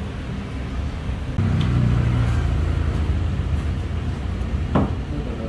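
Road traffic rumbling, with a vehicle's engine growing louder about a second and a half in. A sharp click near the end.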